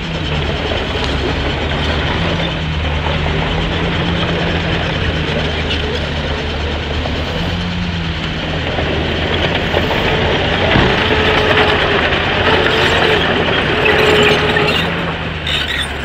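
Heavy earthmoving machinery at work: a diesel engine running steadily under metallic clanking and rattling. A higher whine joins from about ten seconds in and fades near the end.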